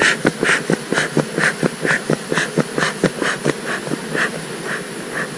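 Bee smoker bellows being pumped steadily, about two puffs a second. Each squeeze gives a short hiss of air and smoke, with a soft knock from the bellows in between.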